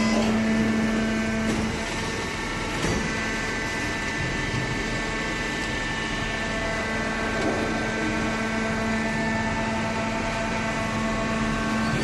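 Hydraulic paper baler's power unit running steadily: a motor-and-pump hum with several fixed whining tones. A strong low tone weakens about two seconds in.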